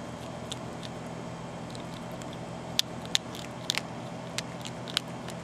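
Young Virginia opossum eating dry cat food: sharp, crisp crunches of kibble, mostly in a cluster about halfway through, over a steady low hum.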